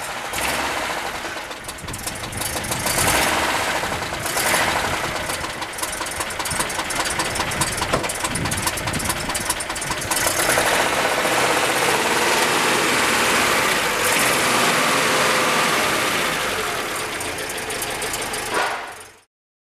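Citroën GSA's air-cooled flat-four engine running, with the revs rising and falling a few times as the throttle is worked by hand at the carburettor. Wind buffets the microphone throughout.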